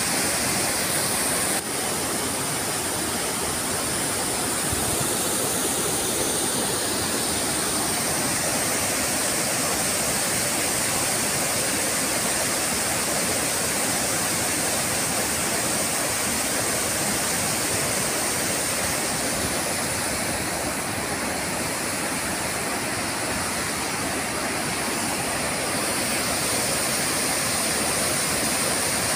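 Overflowing lake water pouring over a concrete dam spillway: a steady rush of white water that hardly changes.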